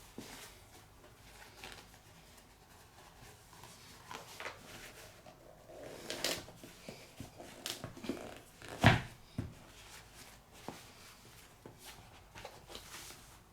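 Scattered handling noises from a sneaker box and shoes being handled: light rustles and taps, with one loud knock about nine seconds in.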